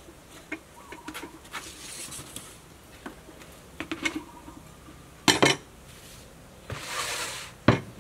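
Plastic basin and wooden cutting board being handled and set down on a wooden table: scattered light knocks, a louder clatter a little past halfway and a sharp knock near the end.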